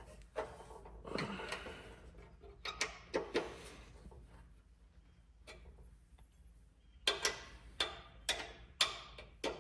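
Scattered light clicks and taps of metal parts being handled on an abrasive chop saw's angle-adjustable vise as its angle is set. A quicker run of sharper clicks comes near the end.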